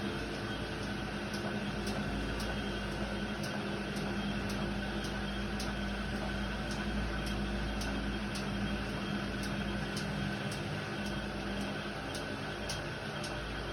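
Indesit WIDL 106 washer-dryer running: a steady mechanical hum with a held low tone and a faint, regular high tick about twice a second.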